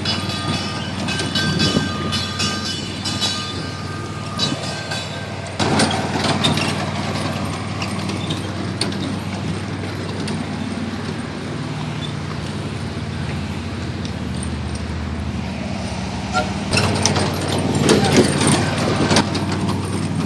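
Kiddie trackless train running: a steady low drone from its motor, with the cars knocking and rattling as it rolls over rough ground. There is a knock about six seconds in and a stretch of rattling near the end.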